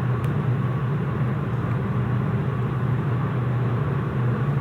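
Steady low machine hum over a constant background noise, unchanging throughout.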